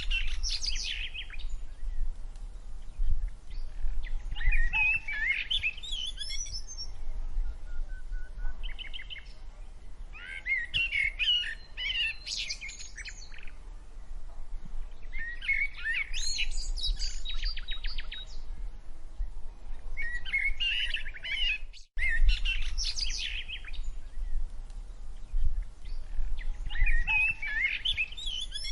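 A songbird singing short, quick chirping phrases every few seconds, over a steady low rumble. The sound cuts out for an instant about three-quarters of the way through.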